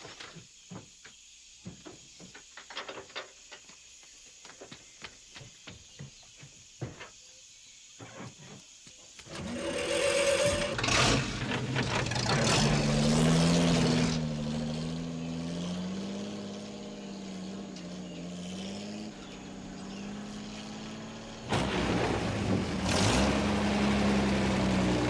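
Scattered small knocks and clatters as the cab of a modified GMC M211 military cargo truck is climbed into, then the truck's engine starts about ten seconds in and runs with a wavering pitch, picking up again louder near the end.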